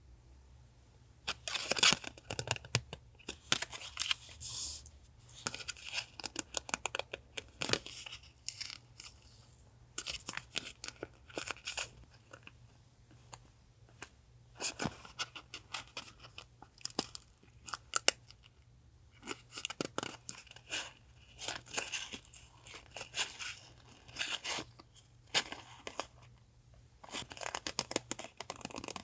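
Paper being worked for a collage journal: tearing, crinkling and snipping in irregular crackly bursts, with short pauses between.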